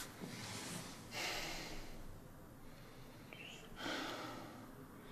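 A woman breathing heavily and gasping in her sleep, two long breathy breaths about a second apart from each other's start by three seconds, the distressed breathing of a nightmare.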